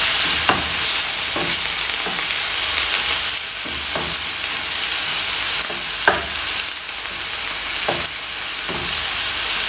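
Chicken pieces sizzling steadily in hot oil in a nonstick frying pan, with a wooden spatula scraping and knocking against the pan every second or two as the meat is stirred.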